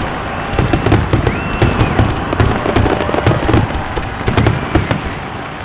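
Fireworks going off in a dense barrage: crackling and popping bursts over repeated low booms, with now and then a high whistling tone that rises and falls.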